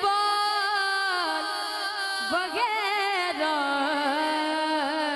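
A boy singing an Urdu naat solo into a microphone, drawing the words "darbaan wagaira" out in long, wavering, ornamented notes.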